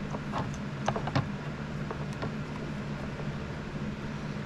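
Light plastic clicks and taps, a few scattered irregularly, from the parts of an Anycubic Ace Pro filament unit being handled (its blue locks and cover), over a steady low hum.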